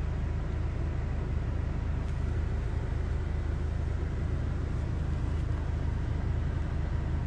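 Steady low rumble of car cabin noise, heard from inside the car.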